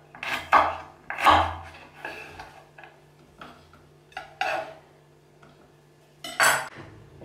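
Kitchen knife chopping a piece of ginger root on a wooden cutting board: several sharp knocks in the first second and a half, then lighter, scattered taps. Near the end comes a louder clatter as the pieces are dropped into the blender cup.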